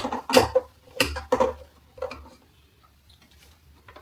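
Metal rods and plastic parts of a clothes drying rack knocking and clinking together as they are handled, about five knocks in the first two seconds, then quiet handling.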